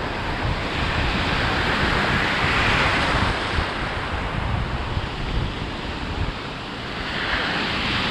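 Ocean surf washing and breaking around a wader, swelling up about two to three seconds in and again near the end, with wind buffeting the microphone.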